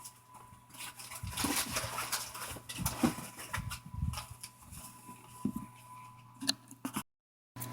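A storage pack being handled: irregular rustling and soft knocks as it and the gear are moved about. The sound drops out completely for about half a second near the end.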